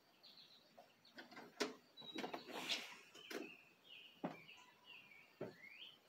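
Wild songbirds chirping faintly around a bird feeder, short high notes with a few quick rising chirps near the end. Several sharp clicks come in between, louder than the birdsong.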